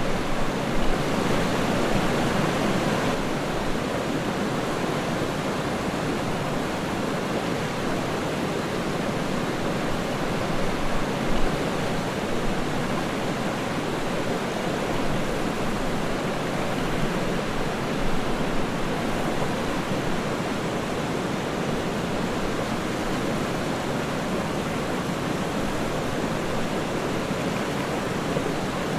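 Waterfall: water falling and splashing in a steady rushing hiss, a little louder and brighter for a couple of seconds near the start.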